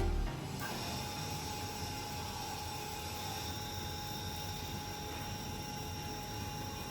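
Small motor running steadily: an even whirring hiss with a faint, constant high whine.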